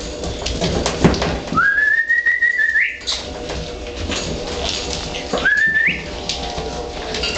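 Australian cattle dog puppies whining: two long, high, steady whines, the first over a second long and the second shorter, each ending in a quick upward squeak. Around them, puppies scuffle and scrabble.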